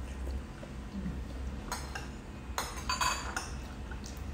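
Metal spoons clinking against ceramic bowls and plates while eating: a few sharp clinks in the second half, one of them ringing briefly.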